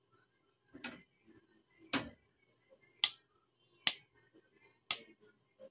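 Knife cutting pieces from a ripe avocado held in the hand: five short, sharp clicks about a second apart.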